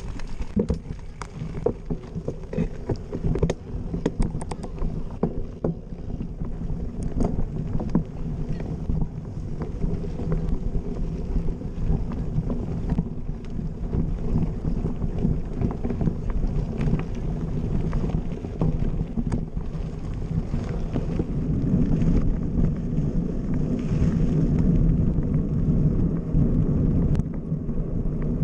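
Mountain bike ridden over dirt and gravel, heard from a camera on the bike: a continuous low rumble of tyres and wind on the microphone, with frequent sharp rattles and clicks as the bike crosses rough ground. The rumble grows steadier and a little louder in the last third.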